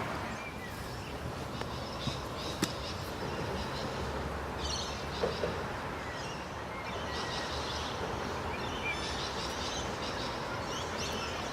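Small birds chirping now and then over a steady outdoor background hiss, with a couple of short faint clicks about two seconds in.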